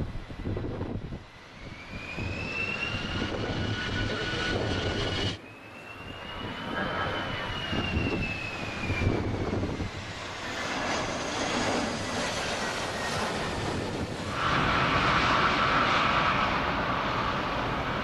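Twin-engine jet airliners on landing approach: the engines' whine rises and then falls in pitch as each aircraft passes, under a steady rumble. The sound cuts off suddenly about five seconds in, and a louder, hissier stretch begins near the end.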